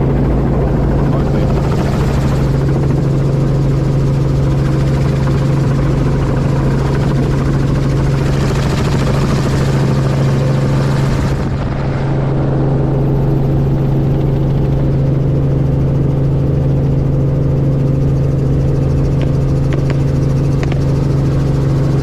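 Helicopter rotor and engine running steadily, heard from on board, with a steady low drone and rushing air that swells and fades a few times.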